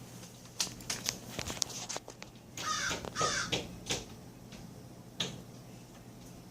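A bird giving two harsh, raspy calls in quick succession about three seconds in, with a few sharp clicks scattered around them.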